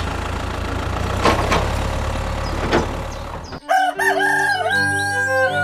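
A small motor hums steadily, with a few sharp clicks, and cuts off abruptly about three and a half seconds in. Music starts at once, with a long rising-then-held crowing-like call over it.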